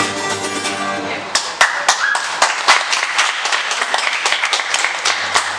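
Small audience clapping, separate irregular claps with voices among them. A held musical note fades out in the first second.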